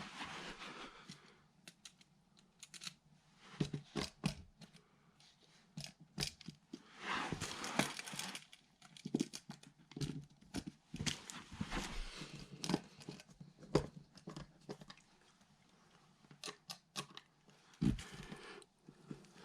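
Irregular clicks, knocks and scraping with short bursts of rustling: hand work on a wall outlet, tools and wiring being handled.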